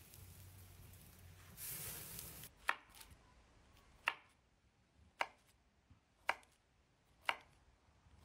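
Steak sizzling on a grill for the first two seconds or so. Then a chef's knife slicing a log of herb compound butter, each cut ending in a sharp knock, five in all about a second apart.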